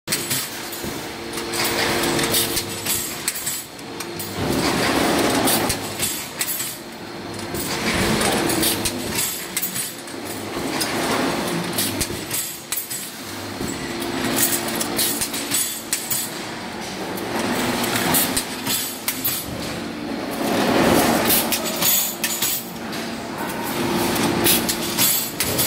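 Automatic chamfering machine for bent steel rods running: a steady motor hum under continual metal clatter and clinking, swelling louder every three to four seconds as the machine cycles through the rods.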